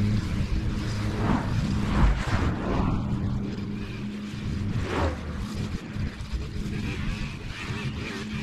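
Small petrol engine of lawn-care equipment running steadily at a constant speed, with a few brief swishes over it.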